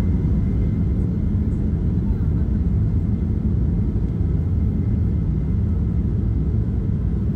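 Steady low cabin rumble of a Boeing 737-800 rolling along the runway, its CFM56-7B turbofan engines running, heard from a window seat over the wing.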